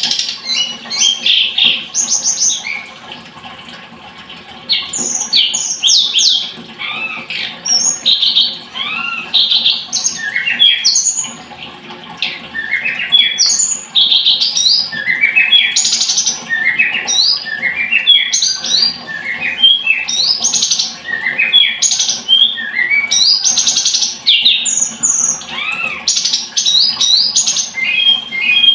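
Tledekan gunung songbird singing a long, rapid, varied song of high chirps, trills and sliding notes, with brief pauses between phrases.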